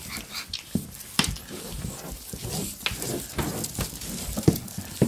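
Pug puppies scrambling on a floor close by: irregular clicks and soft knocks of small paws and claws, with two sharper knocks near the end.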